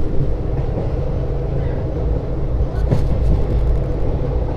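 Passenger train running behind twin WDP4 diesel locomotives: a steady low rumble of engines and running gear, with a short clatter about three seconds in.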